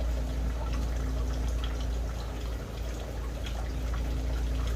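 Aviary ambience: a steady trickling, water-like noise over a low rumble, with a few faint, short chirps from small cage birds.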